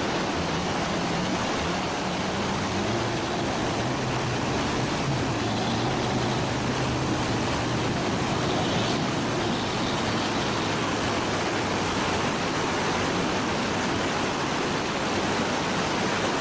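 Fast white-water river rushing over rocks, a loud steady roar of water, with a bus engine's low drone faintly underneath through the middle of the crossing.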